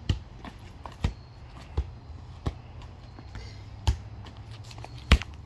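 A small ball kicked up repeatedly in foot juggling: six dull thuds at uneven intervals of roughly a second, the last the loudest.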